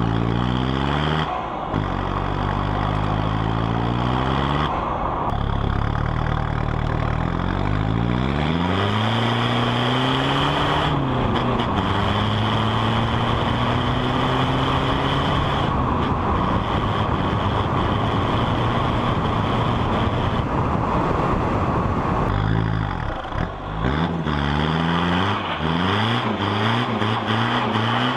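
Vehicle engine accelerating hard. Its pitch climbs and drops back several times, as at gear changes. A stretch of steady road and wind noise comes in the middle.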